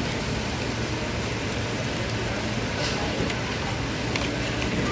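Steady background din of a busy open-air food court: a continuous even rush with a low hum, faint voices, and a few light clicks.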